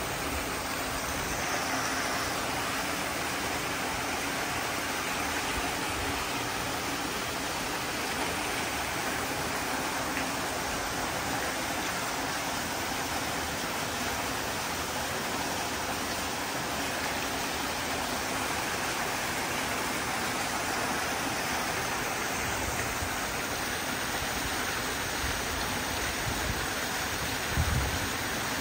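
Small waterfall in an ornamental fountain pond, water falling over a rockery and splashing steadily into the pool. A brief low thump near the end.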